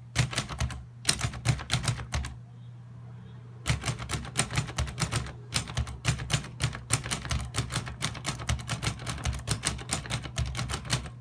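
1939 Underwood Noiseless Portable typewriter being typed on: a quick run of key strikes, a pause of about a second and a half, then fast, steady typing.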